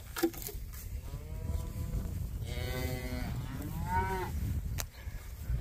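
Cattle mooing: three calls, a faint one about a second in, a longer, stronger one in the middle, and a shorter one that rises and falls in pitch soon after.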